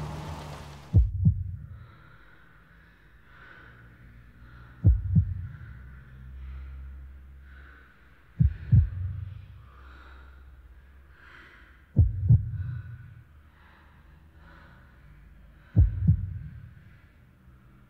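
Slow heartbeat, a deep lub-dub double thump repeating five times, about every three and a half seconds. A steady car-cabin rumble cuts off just before the first beat.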